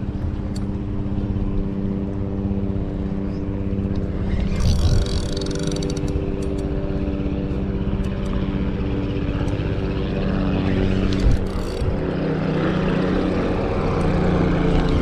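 A steady engine drone with several even pitches, its pitch shifting a little about twelve seconds in. A couple of brief rustles break in around five and eleven seconds.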